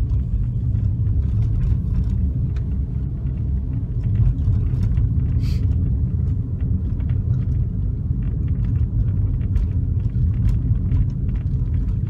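Steady low rumble of a car driving slowly, heard from inside the cabin, with faint scattered ticks and a brief hiss about halfway through.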